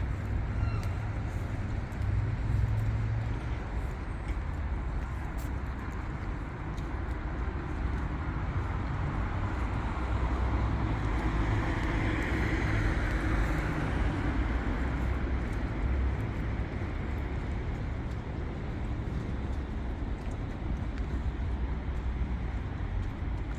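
City street traffic: a steady wash of road noise with low rumble, and a vehicle passing about halfway through.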